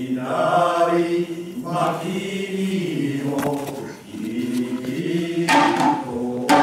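Male voices of a Mikawa manzai troupe chanting a recitation together in long held notes that step up and down, with a few sharp strikes of small hand drums (tsuzumi), the loudest in the second half.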